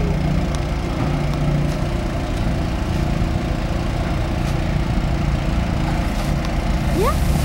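Heavy truck diesel engine idling steadily, a low even hum.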